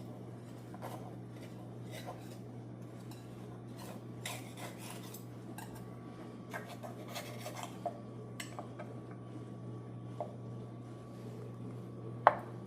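Scattered clinks and scrapes of a knife, shell and dish as a blanched geoduck clam is worked out of its shell, over a steady low hum. A sharp click comes near the end.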